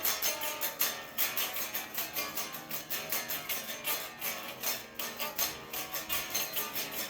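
Guitar strummed in a quick, even rhythm, about five strokes a second, with no voice over it.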